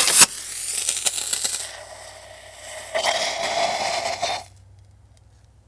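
Surplus smoke grenade fuze, converted with a pop-rivet igniter, firing: a sharp metallic crack as it goes off, then about four seconds of sparking hiss from the igniter and canister. The hiss grows louder with a faint whistle about three seconds in and then cuts off suddenly.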